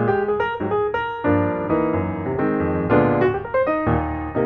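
Piano music playing: a melody of separate struck notes over chords.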